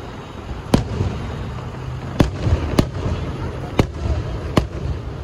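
Fireworks shells bursting overhead: five sharp bangs spread over about four seconds, over a low rumbling background.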